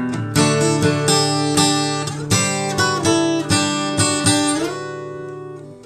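Intro music: guitar chords strummed in a steady rhythm, about three strokes a second, settling near the end into one held chord that rings and fades.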